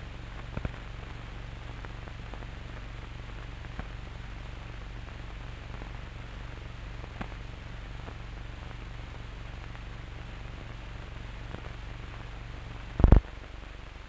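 Steady hiss and low hum of an old film soundtrack with no narration, scattered with faint crackles. A short loud thump comes about 13 seconds in.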